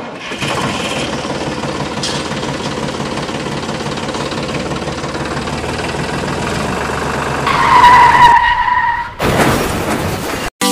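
Tractor engine running steadily. Near the end a higher tone sounds over it for about a second, then the engine drops away into a short whoosh.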